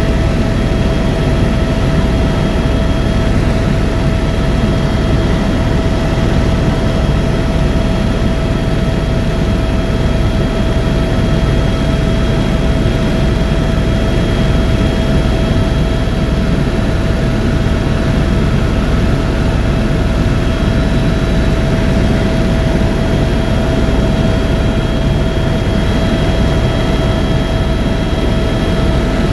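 Turbine tour helicopter in flight: steady engine and rotor noise with a constant high whine over it.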